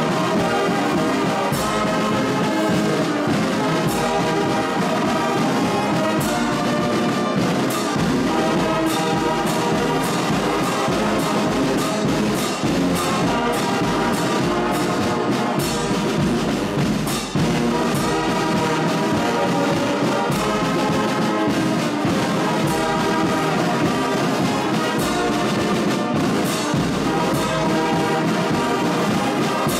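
A large brass band playing together: massed trumpets, trombones and sousaphones holding full chords, with drum strokes keeping a steady beat.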